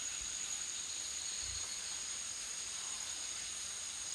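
Steady high-pitched drone of a night insect chorus in a forest.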